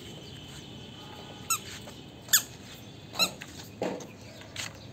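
A series of five short, high squeaks, spaced roughly half a second to a second apart.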